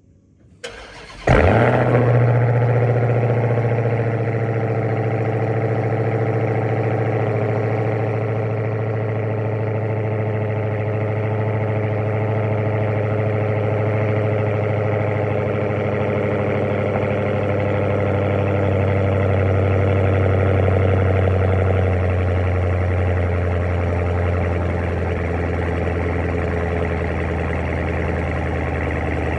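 Supercharged 6.2-litre HEMI V8 of a 2021 Dodge Charger SRT Hellcat Widebody, exhaust with a 3-inch mid-muffler delete, cold-starting: a brief crank, then it catches about a second in with a loud flare and settles into a steady high cold idle whose pitch slowly drops as it warms.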